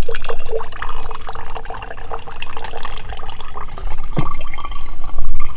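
Water draining out of the bottom of a freshly watered potted Monstera, trickling and dripping irregularly.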